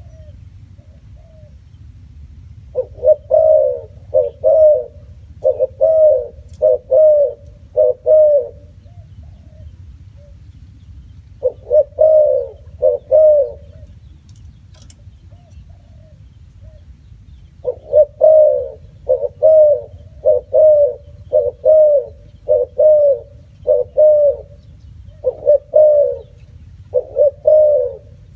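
Spotted dove cooing: bouts of repeated short, low coos, a run of about half a dozen, then a short pair or trio, then a longer run near the end, with pauses of several seconds between bouts.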